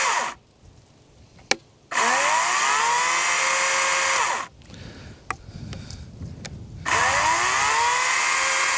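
Wild Badger 40-volt cordless electric chainsaw running with no load in short bursts: the motor whines up to speed with a rising pitch, holds a steady high whine, then stops quickly. It is running as the sound begins and cuts off almost at once, runs again from about two seconds in to about four and a half seconds in, and starts a third time near the end. Single clicks fall in the gaps.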